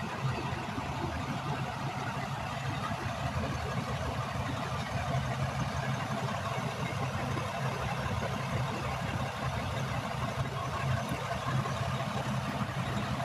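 A motor vehicle engine idling steadily, an even low hum that doesn't change.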